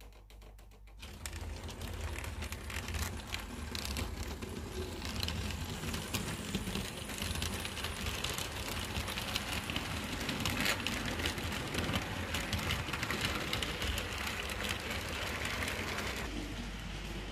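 HO-scale model train running along the layout track: a steady whirr of the model's electric motor and wheels, with rapid clicking from the wheels on the rails. It starts about a second in and eases off near the end.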